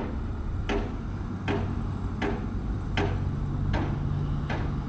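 Regular hammering on the construction site, one sharp blow about every three-quarters of a second, over the steady hum of running machinery.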